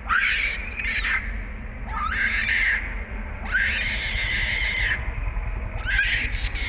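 Infant long-tailed macaque screaming in four shrill cries about a second long, each sweeping sharply up in pitch and then held, about every two seconds. It is the distress crying of a baby begging to nurse and being refused by its mother.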